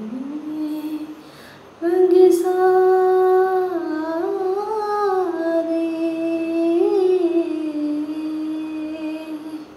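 A solo female voice, with no instrument, hums a wordless vocal phrase in a Hindustani light-classical song. There is a short note first, then, after a brief pause, one long held note that glides up and down in ornamented bends before trailing off near the end.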